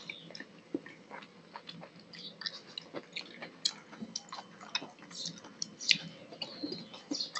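Close-miked eating sounds: wet chewing and mouth clicks, with soft squelches and clicks of fingers mixing rice and fish curry on a metal plate. The loudest click comes about six seconds in as a mouthful goes in.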